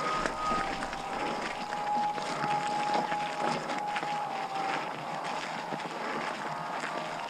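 Norco Aurum downhill mountain bike rolling fast down a wet, muddy trail: tyre noise and the bike rattling over roots and rocks, with wind on the microphone. Thin steady squeals, briefly near the start and again for a few seconds in the middle, are typical of disc brakes dragging in the wet.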